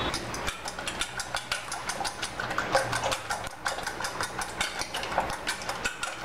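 A fork beating raw eggs in a stainless steel bowl, its tines clicking against the metal in a fast, even rhythm of several strokes a second.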